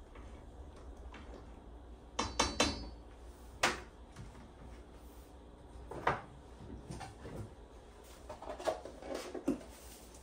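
Kitchen handling sounds: a cabinet door and containers being knocked and set down, with a quick cluster of clicks about two seconds in, a single sharp knock shortly after, and more taps and clatters near the end.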